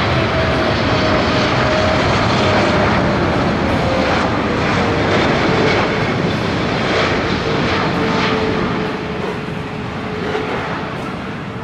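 Boeing 777-300ER's GE90-115B turbofan engines running on final approach, a dense jet noise with a whine that slides slowly down in pitch as the aircraft passes. The sound fades over the last couple of seconds.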